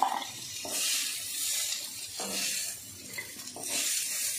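Hot fried onions sizzling as they are scooped out of a kadhai with a spatula and dropped into a steel bowl. The spatula scrapes and knocks against the pan about three times, and the hiss swells with each scoop.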